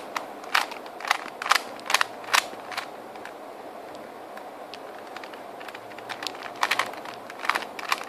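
Plastic Rubik's Cube layers being twisted by hand, a quick series of sharp clicks and clacks as the faces turn. There is a pause of a few seconds in the middle, and then a few more clicks near the end.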